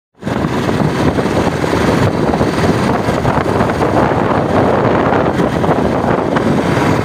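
Loud, steady wind buffeting the microphone of a motorcycle on the move at road speed, mixed with the rumble of the bike and road. It starts abruptly a fraction of a second in.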